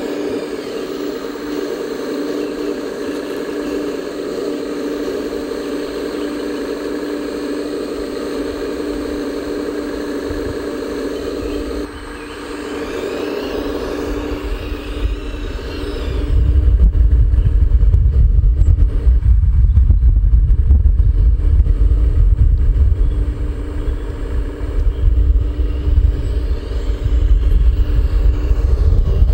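Radio-controlled Liebherr 970 SME model excavator's hydraulic drive running with a steady whine as it digs and loads. About halfway through, a louder, uneven low rumble takes over.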